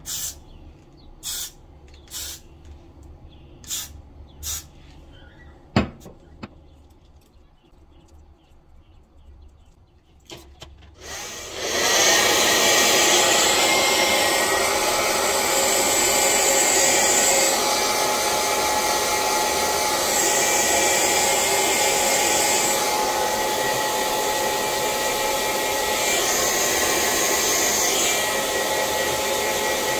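A few short spritzes of aerosol hair holding spray in the first five seconds and a sharp click about six seconds in. From about twelve seconds a hair dryer runs steadily on the freshly sprayed lace.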